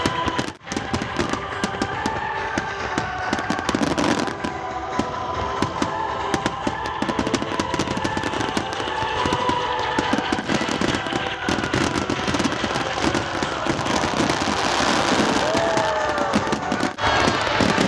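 Large aerial fireworks display: a continuous run of shell bursts and dense crackling, with music playing underneath.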